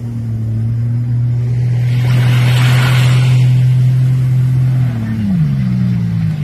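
Jet ski engine opening up hard and holding a steady high-revving drone as it speeds across the water, with a rushing hiss about two to three seconds in. About five seconds in, the pitch falls as the throttle eases off.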